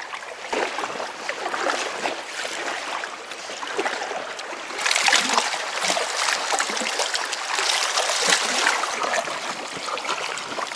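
Paddle strokes on an inflatable kayak: water splashing and trickling off the paddle blades and lapping at the hull, louder from about five seconds in.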